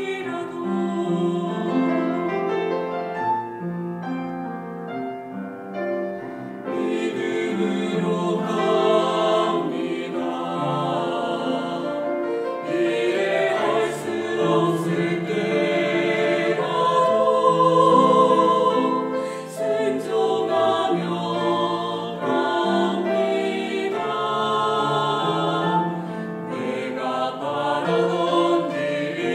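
Small mixed choir of women's and men's voices singing a slow hymn in Korean in harmony, with long held notes, swelling a little about two-thirds of the way through.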